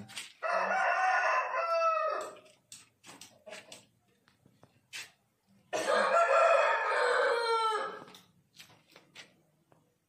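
Aseel rooster crowing twice, each crow about two seconds long and dropping in pitch at the end.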